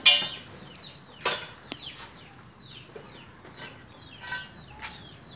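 Hand-lever punch press driving its punch through 5 mm UNP 10 steel channel: one sharp metallic bang right at the start, followed by a few light metal clicks as the punched piece is handled. Birds chirp repeatedly in the background.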